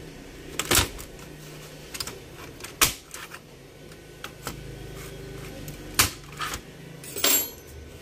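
Plastic snap clips of a Dell Inspiron N5050's palmrest clicking loose as the panel is pried off by hand: a handful of sharp, separate clicks, the loudest about three and six seconds in.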